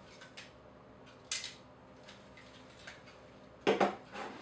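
Handling noise as cameras are put down and picked up: a sharp click about a second in and a louder double knock near the end, over faint room tone.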